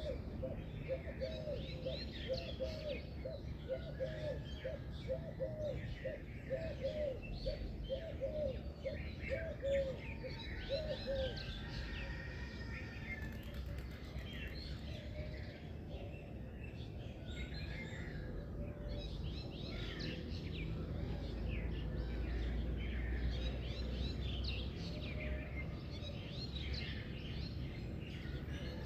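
A chorus of small birds chirping and singing, many overlapping quick calls and trills. For the first third a lower note repeats about two to three times a second, then stops. A steady low rumble runs underneath.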